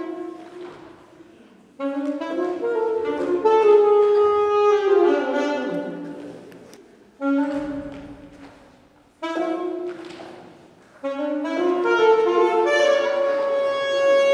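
Saxophone playing a melody in short phrases with brief pauses between them, ending on a long held note, echoing in a school gym.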